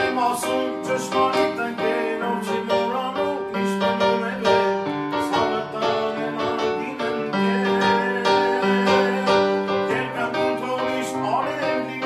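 Electronic keyboard played in a piano voice, a melody of struck notes over long held bass notes, with a man singing along.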